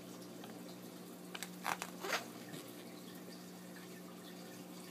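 Glossy pages of a paperback travel guide being turned, two brief papery rustles about two seconds in, over a faint steady hum.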